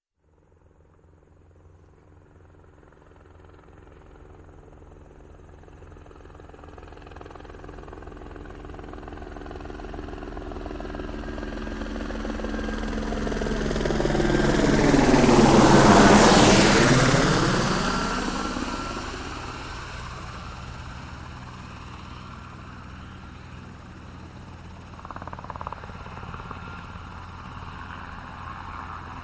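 Helicopter flying past: the rotor and engine sound grows steadily louder, passes at its loudest about halfway through, and drops in pitch as it fades away. A higher steady tone joins near the end as it recedes.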